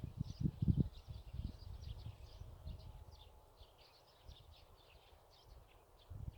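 Many small birds chirping, a dense run of short high chirps that goes on throughout. Low irregular rumbling comes in the first second or so and again near the end.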